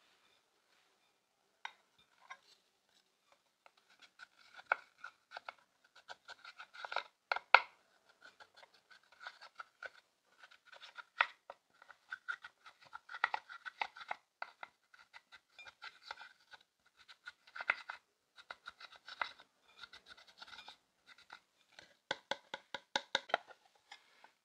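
Pressed eyeshadow in a plastic palette being scraped and crushed with the end of a wooden brush handle: an irregular stream of short scratchy clicks and taps as the powder cakes crumble, starting a few seconds in.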